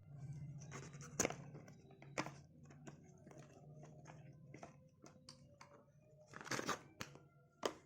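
Packaging of an audio cable being opened by hand: irregular rustling, crinkling and tearing with a series of sharper crackles and clicks, the loudest about a second in, two seconds in and near the end.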